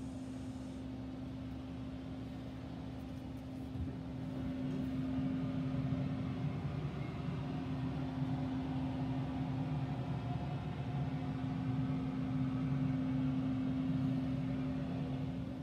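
Louisiana Grills SL 1000 pellet grill running: a steady hum of its fan motor, a little louder from about four seconds in.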